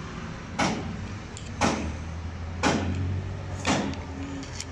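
Metal-on-metal strokes about once a second, five in a row, as a cotter is worked into place on a Hino 7D inline six-cylinder diesel injection pump during its rebuild. A steady low hum runs underneath.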